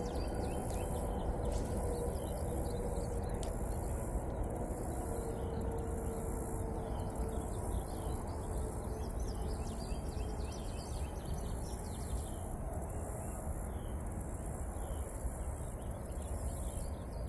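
Steady high-pitched insect chorus with faint bird calls over a low, even background hiss.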